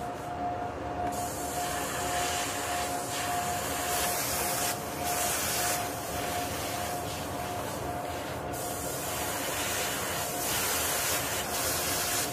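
Airbrush spraying paint onto lures in short hissing spurts, several times. Beneath it runs a steady whir with one constant tone.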